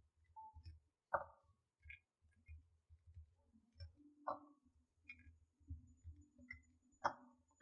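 Small plastic kit parts being handled and set down on a work surface: faint rustling broken by three light clicks about three seconds apart, the last the sharpest.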